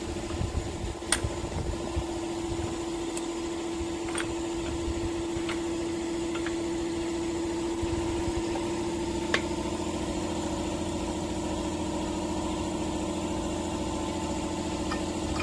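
An engine idling steadily, with a few light clicks and one sharper click about nine seconds in.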